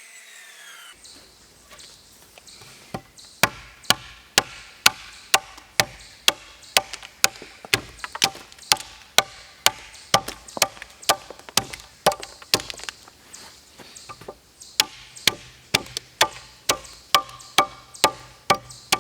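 Hammer blows knocking out the waste wood between circular-saw kerfs to clear a dado in a pressure-treated 4x4, struck about two times a second starting some three seconds in. In the first second a circular saw blade winds down with a falling whine.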